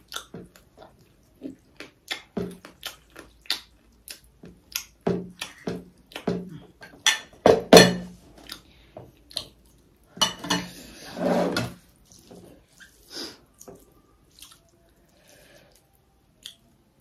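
Scattered light clinks and taps of dishes and cutlery, irregular and sharp, with a longer scraping rustle about ten seconds in.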